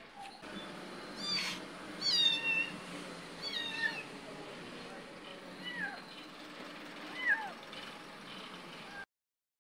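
Cat meowing: about five short, high calls that each fall in pitch, the loudest about two seconds in. The sound cuts off abruptly near the end.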